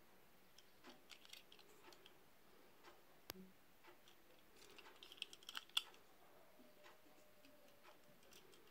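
Near silence with faint clicks and taps from a small die-cast toy car being turned over in the fingers. There is one sharper click about a third of the way in and a quick run of clicks just past the middle.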